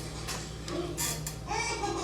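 Faint voices over a low steady hum, then music with a singing voice comes in about a second and a half in.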